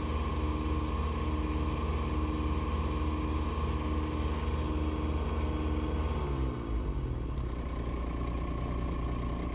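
Engine running steadily at raised throttle with no load, then throttled back about six seconds in, its revs falling to a steady idle.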